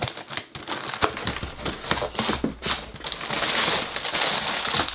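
A cardboard LEGO box being handled and opened, then plastic bags of LEGO pieces sliding out of it, crinkling and rustling. The crinkling is densest from about three seconds in.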